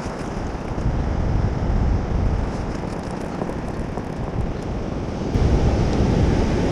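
Surf breaking and washing on the shore, with wind buffeting the microphone in low rumbling gusts about a second in and again near the end.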